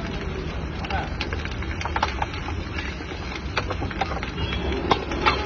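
Gas burner under a wok running with a steady low roar, with scattered sharp metal clinks as spices are spooned from steel bowls onto the rice.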